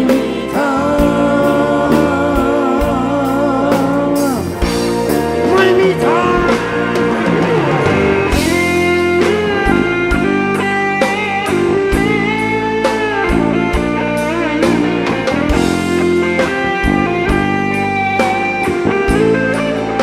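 A live rock band playing a Thai phleng phuea chiwit song, with guitar over bass and drums, and singing at times.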